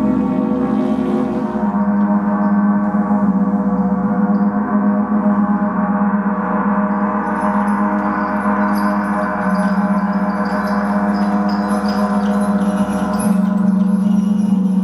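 Large gong played with a soft mallet: a loud, sustained wash of many overlapping tones, strongest in a low hum, with no single strikes standing out.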